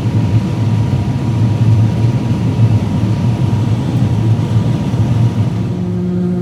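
Large farm machine's engine running steadily with a loud low rumble. Near the end the rumble eases and a steady humming tone comes in.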